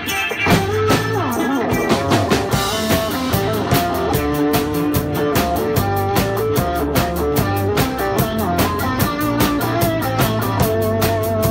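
Rock instrumental with guitar, played live on a clear acrylic Pearl drum kit along with a backing track. From about two seconds in the drums keep a fast, even beat of cymbal strokes under held instrumental notes.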